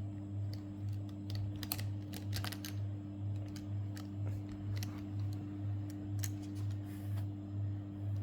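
Small plastic pieces of a 4x4 Rubik's cube clicking and tapping irregularly as they are handled and fitted together, over a steady low hum that pulses about twice a second.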